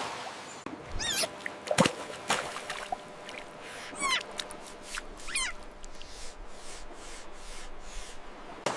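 Three high, squeaky, wavering animal calls, each falling quickly in pitch, with scattered sharp clicks or knocks between them over a faint background hiss.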